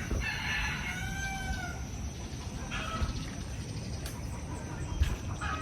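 A rooster crows once near the start, one arched call about a second and a half long, followed by two short chicken calls later on, over a steady low rumble.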